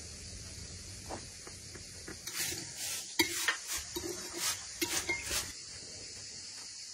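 Metal spoon stirring a yellow mixture in a ceramic bowl, with a quick run of clinks and scrapes against the bowl's sides that starts about two seconds in and stops after about three seconds.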